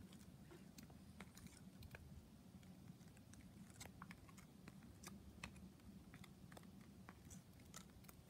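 Faint, irregular small clicks and taps from a budgerigar moving about on a tatami mat with a small paper slip in its beak.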